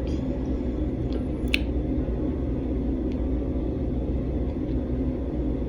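Steady low rumbling background noise in a small room, with a faint short click about a second and a half in.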